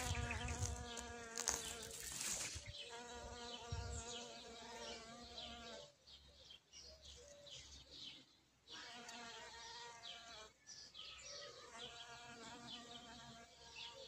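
A bee buzzing in flight, a steady hum that comes in three bouts of a few seconds: at the start, from about three seconds in to about six, and again near the end. Small birds chirp in the background.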